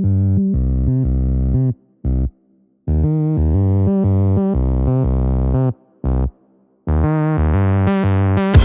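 Electronic background music: synthesizer bass chords in short phrases broken by abrupt silent gaps, building up, with a dense drop of drums starting right at the end.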